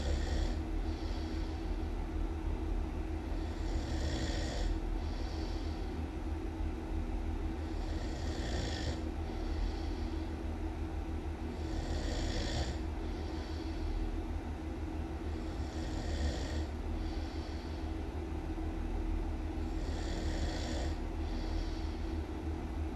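Loud human snoring, one breath about every four seconds, each ending in a two-part hissing exhale over a steady low rumble.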